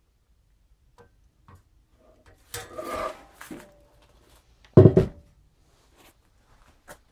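Sheet-metal bottom cover of a Pioneer SX-82 receiver being lifted off the chassis, with scraping and rattling about three seconds in. Just before five seconds it lands with a loud metallic clunk that rings briefly, and there are a few light clicks around it.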